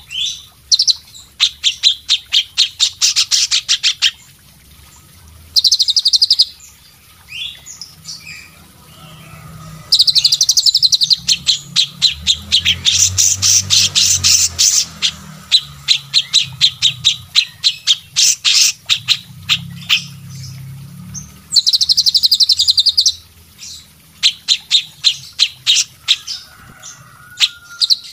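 Several songbirds singing together, a medley of bulbul-type and leafbird songs: fast runs of sharp chirping notes, many a second, in bursts separated by short pauses.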